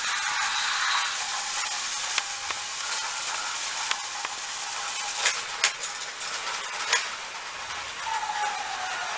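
Battery-powered Plarail toy train running on plastic track: a steady whir from its small gear motor, with a few sharp plastic clicks, the loudest about five to seven seconds in.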